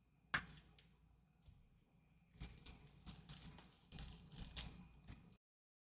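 Faint handling of trading cards and pack wrappers: a single sharp click about a third of a second in, then about three seconds of irregular crinkling and rustling that cuts off suddenly near the end.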